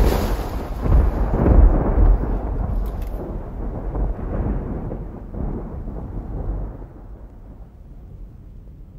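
A deep rumbling noise, loud at first and dying away slowly over several seconds.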